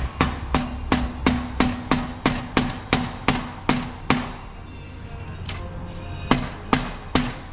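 Rubber mallet hammering on the titanium exhaust hoop of a Ferrari 458 to knock it into alignment. The blows come about three a second for some four seconds, each leaving a brief low ring from the pipe. After a pause of about two seconds, three more blows follow near the end.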